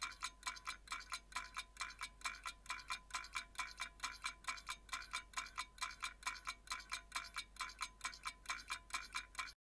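Even, rapid ticking sound effect, about four ticks a second, each tick with a slight ring, over a faint low hum.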